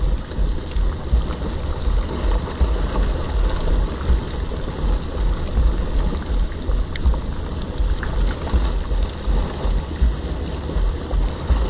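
Boiling mud pot churning and bubbling in a hydrothermal vent area, with steam venting: a steady, deep, fluctuating noise without any distinct tone.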